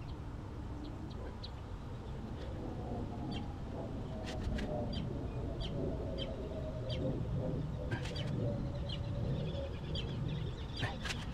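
A bird chirping repeatedly, short high chirps about twice a second, over a low, steady background noise, with a few faint clicks.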